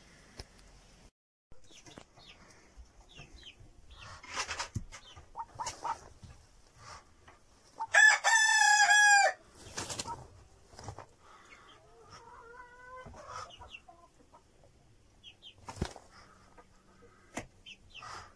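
A rooster crows once, loud and a little over a second long, about eight seconds in. Around it come quieter fowl clucking, a few short high chirps, and rustling as a Muscovy duck hen shifts on her nest of down.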